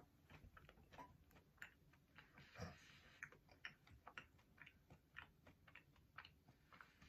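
Faint, irregular crunchy clicks of someone chewing a piece of white-chocolate candy bar with crisp Fruity Pebbles cereal in it.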